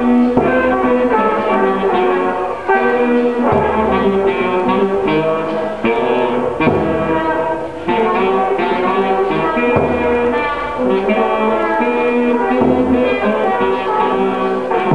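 Instrumental music: sustained notes from several instruments, with a low beat about every two seconds.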